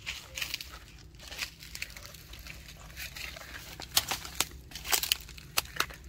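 Dry leaves and pineapple plant leaves rustling and crackling, with several sharp snaps in the second half.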